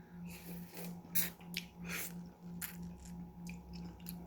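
A person sucking and biting ripe apple mango flesh off the peel: a string of short, wet mouth noises.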